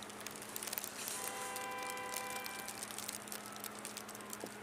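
A steady pitched tone, held for about a second and a half starting about a second in, over constant crackling of wind and snow on the microphone.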